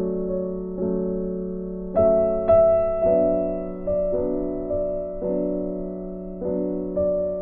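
Soft background music: slow piano chords, each struck and left to fade, about one a second.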